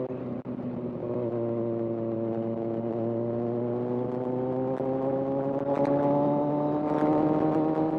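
Kawasaki Z1000's inline-four engine pulling in one gear, its pitch rising slowly and steadily as the bike gathers speed.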